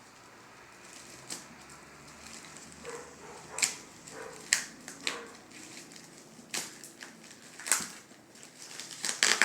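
Shipping package being handled and opened by hand: a scattered series of sharp crackles and knocks, about seven, with the loudest cluster near the end.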